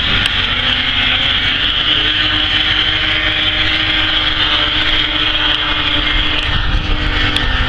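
Vintage racing snowmobiles' two-stroke engines running hard as a pack races around the oval; one steady engine note holds for several seconds and fades near the end.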